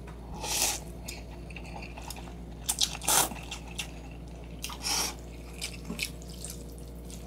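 Close-miked eating of instant noodles: several short, wet bursts of chewing and slurping with pauses between them.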